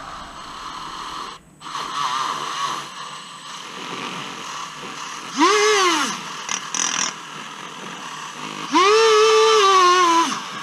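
Dremel rotary tool fitted with a small wire brush, cleaning out a hole for the new control arm. It runs in bursts: a brief whine that rises and falls about halfway through, then a longer whine near the end that sags in pitch as the brush bites, before it cuts off.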